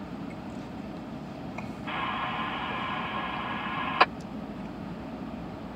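Railroad scanner radio keyed open with no words: a band of radio hiss starts about two seconds in and is cut off by a squelch click about four seconds in, over a low steady rumble.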